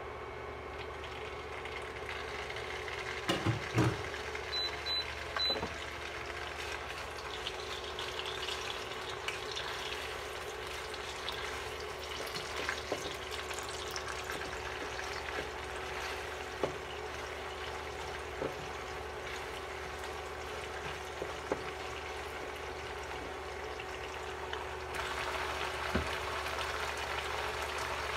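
Chorizo pieces land in hot oil in a nonstick frying pan with a few knocks about three seconds in, then sizzle and fry. A wooden spatula presses and stirs the meat with scattered clicks against the pan, and the sizzling grows louder near the end.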